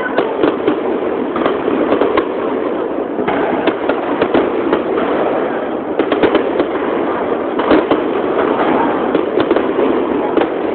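Aerial fireworks shells bursting close by in a rapid, unbroken barrage: dense bangs overlapping with continuous crackling.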